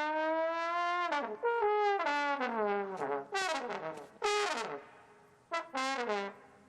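Trombone playing silly noises: one long note that creeps up in pitch, then a string of short, sliding notes, several of them swooping downward.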